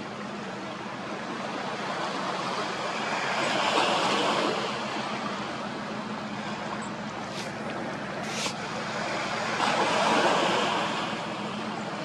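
Small waves washing against the shore, swelling twice, with a faint steady low hum underneath.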